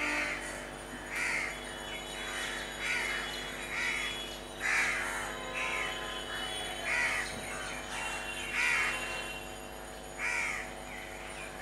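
Crows cawing over and over, one harsh call about every one to two seconds, over a steady low hum.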